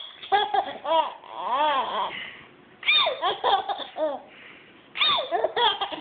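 Infant laughing in high-pitched bursts, three bouts of giggling with short pauses between them.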